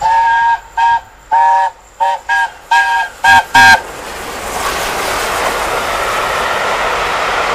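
Steam locomotive's chime whistle sounded in a quick series of about eight short blasts, several notes at once, followed by the rushing noise of the train passing, growing louder.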